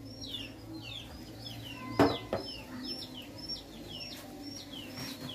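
Chicks peeping over and over, a fast run of short, high, falling peeps. There is one sharp clank about two seconds in, over a faint low steady hum.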